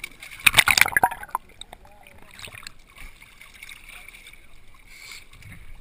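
A diver climbing a boat's swim ladder out of the water: a burst of splashing and knocks against the ladder and hull about half a second in, then quieter water and movement noises.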